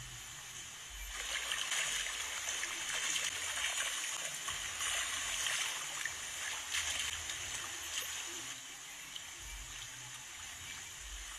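Hooked catfish thrashing at the water's surface: a run of splashing that starts about a second in and dies down after about seven seconds.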